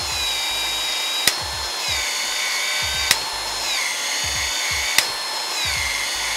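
Milwaukee cordless PEX expansion tool running continuously as it expands the end of PEX-A pipe, its motor pitch dipping several times under load. A sharp click comes roughly every two seconds, three times in all.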